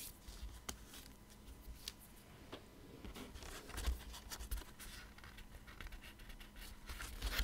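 Faint rustling and light taps of card stock being handled by hand and pressed down flat onto a cutting mat, with a few soft thumps about halfway through and near the end.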